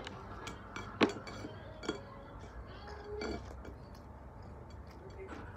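Sharp clinks against a ceramic dinner plate, twice, about a second in and again near two seconds in, with a few fainter ticks, as rice is picked up off the plate by hand while eating.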